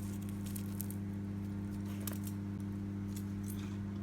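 A steady low hum with a few faint clicks and taps.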